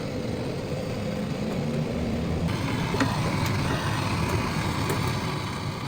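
Steady engine rumble with a few light clicks and taps over it.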